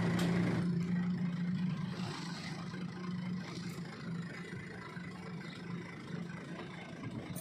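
A machine's engine running with a steady low drone over outdoor noise, loudest in the first few seconds and then fading.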